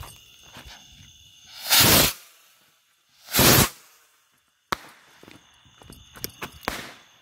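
Two bottle rockets launching, each a short whoosh lasting about half a second, the second about a second and a half after the first, followed a little over a second later by a single sharp pop.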